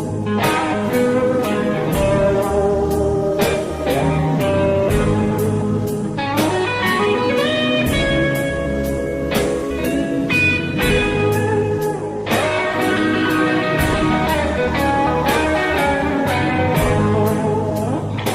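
Instrumental break in a slow blues-rock song: a lead guitar plays a solo with bending, sliding notes over bass and a steady drum beat.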